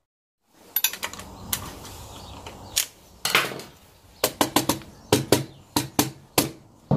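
Irregular metallic clicks and knocks as a BMW K1200's clutch basket is rocked and knocked onto the engine's gears, its teeth clattering as it is worked into mesh with the crank gear and oil pump drive. The knocks come in a quick cluster about four seconds in.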